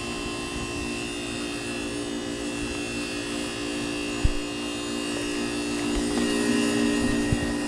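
2001 Heil Performance 10 heat pump running through its defrost cycle: a steady mechanical buzzing hum from the outdoor unit. A brief low thump about four seconds in.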